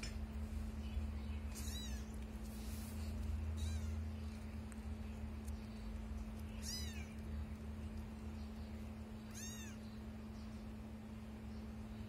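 Young kittens mewing: about four short, high-pitched mews, each rising and falling in pitch, spaced a few seconds apart over a steady low hum.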